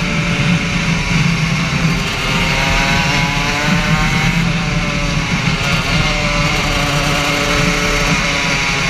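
Racing kart engine heard onboard, running at high revs under acceleration, its pitch climbing, easing briefly past the middle, then climbing again.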